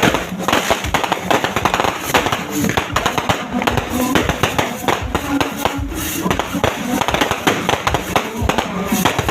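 Dense fireworks and firecrackers going off nonstop, many rapid bangs and cracks overlapping into a continuous crackle.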